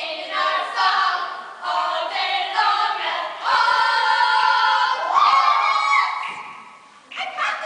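A group of voices singing a cappella, in sustained chords that change every second or so. The longest chord is held for about two and a half seconds before the singing fades out, and it starts again near the end.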